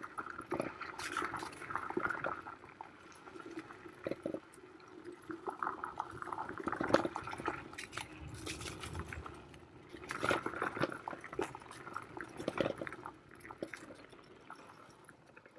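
Varla Eagle One Pro dual-motor electric scooter ridden fast over a bumpy dirt trail: a steady motor whine over the rumble of the tyres, with frequent knocks and rattles as it hits bumps.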